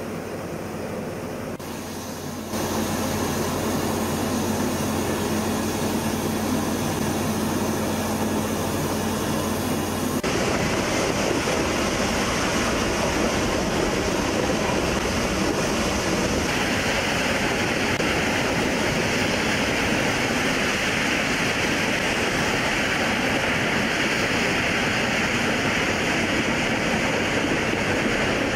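Nilgiri Mountain Railway steam locomotive: a steady hiss of venting steam, then the steady running noise of the train moving along the track. The sound changes abruptly a few times.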